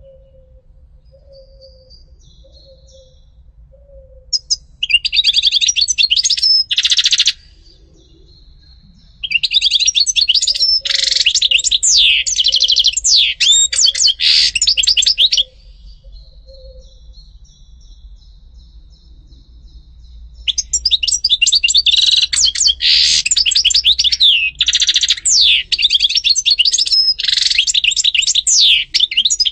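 European goldfinch singing: fast twittering song in three bouts, a short one about five seconds in, a longer one from about nine to fifteen seconds, and a long one from about twenty seconds on, with quiet pauses between.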